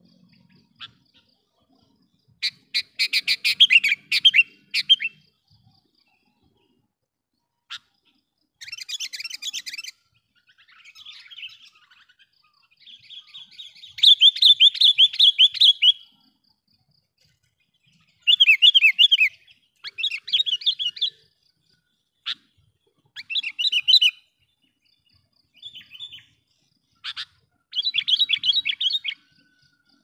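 Sooty-headed bulbul (kutilang) calling in a series of sharp, chattering, trilled phrases, each one to three seconds long with short pauses between them. The longest and loudest phrase comes about halfway through. This is the loud, sharp call used as a lure to provoke and draw in wild bulbuls.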